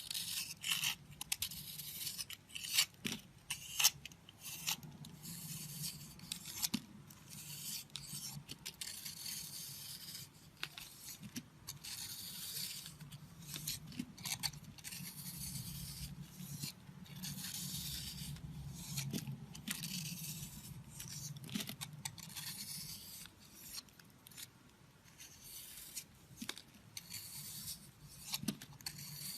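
A blade cutting and scraping a bar of soap: a run of sharp crackling cuts in the first few seconds, then long continuous scraping strokes, with occasional crisp clicks.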